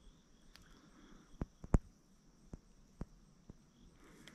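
A handful of sharp, short clicks and knocks from rod and reel handling in a boat while a lure is worked, uneven in spacing, the loudest about two seconds in. Behind them, a faint steady high chirring of insects.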